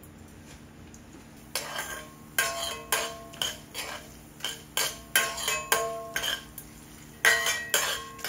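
Metal spoon clinking against metal cooking vessels, a string of sharp ringing clinks about twice a second that begins about a second and a half in, as spices for a tempering are stirred and added.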